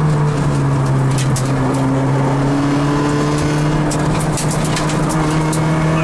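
Rally car engine heard from inside the cockpit, running steadily at speed with only slight changes in pitch. Scattered sharp clicks sound over it about a second in and again from about four seconds.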